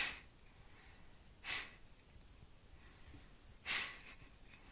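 A cat hissing three times in short breathy bursts, at the start, about a second and a half in and near four seconds in: a warning in a standoff with another cat.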